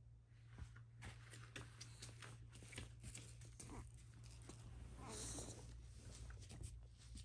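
A Shiba Inu getting up and padding over: a quiet run of soft clicks and rustles from its paws and body on the mat and floor, with a longer rustle about five seconds in.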